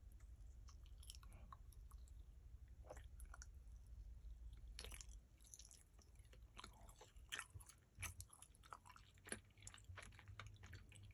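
Quiet, irregular chewing of a gummy candy pizza: soft wet smacks and sticky clicks of the mouth, with a few louder smacks in the second half.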